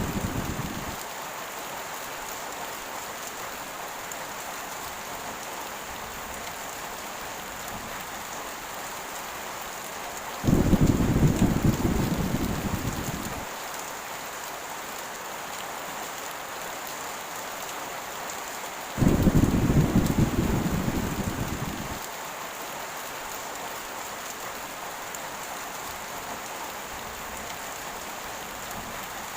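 Steady heavy rain, with two rolls of thunder that each start suddenly and die away over about three seconds, about a third and two thirds of the way through; an earlier rumble fades out in the first second.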